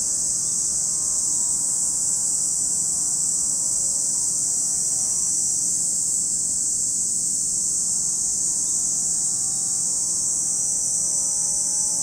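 Cicadas shrilling in a steady, unbroken high-pitched chorus, the loudest sound throughout. Underneath runs a faint engine drone whose pitch slowly rises and falls.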